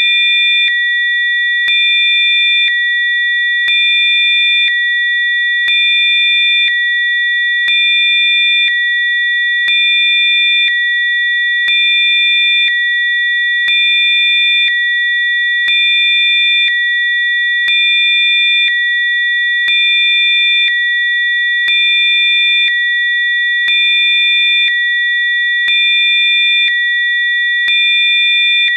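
Several steady electronic sine tones sounding together at high pitches, with a slight swell in loudness about every two seconds: a Rife frequency tone track.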